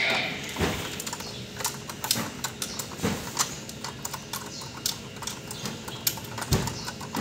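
Irregular light clicks and taps of a screwdriver and hands working on the metal casing of a forklift controller circuit board, with three duller knocks spread through them.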